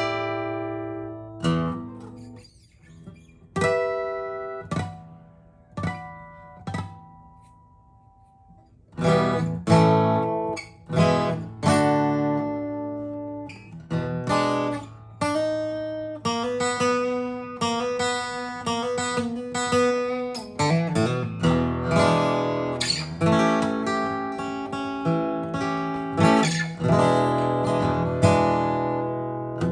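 Aria D-60 acoustic guitar by R. Matsuoka being played. For the first several seconds, single plucked chords and notes ring out with pauses between them. From about nine seconds in, chords are strummed and picked without a break.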